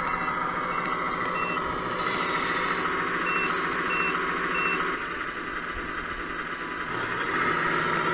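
Tamiya 1/14 Scania RC truck's sound unit playing a diesel engine sound with a reversing beeper. The beeps come about twice a second in two runs, the second starting about three seconds in. The engine sound drops in level about five seconds in.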